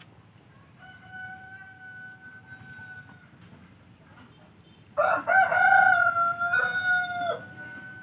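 Roosters crowing: a fainter, long crow about a second in, then a loud, close crow starting about five seconds in and lasting over two seconds.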